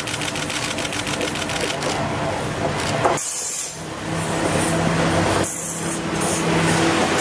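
KiHa 52 and KiHa 28 diesel railcars passing close by, their DMH17 diesel engines running with a fast, even rattling beat. After a short dip about three seconds in, a steady low engine drone takes over as the cars go past.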